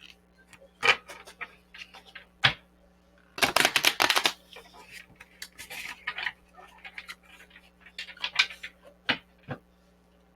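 Tarot cards being handled and drawn from the deck: scattered taps and flicks of card against card and table, with a dense rattle of shuffling lasting about a second, roughly three and a half seconds in.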